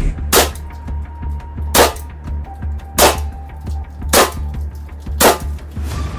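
Beretta CO2 air pistol firing five single shots, each a sharp crack, a little over a second apart, over background music with a steady bass beat.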